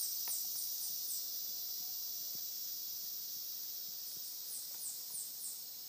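Steady high insect chorus, with two runs of four or five short, high, falling chirps: one near the start and one late on.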